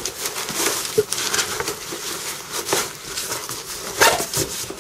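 Zips of a fabric MOLLE admin pouch being pulled closed over a packed load, with irregular scratchy rustling and scraping of fabric under gloved hands and a louder scrape about four seconds in.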